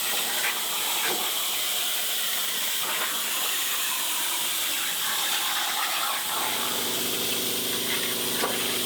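CNC plasma table's plasma torch cutting steel plate, a steady hiss. A steady hum with several tones joins it about six seconds in.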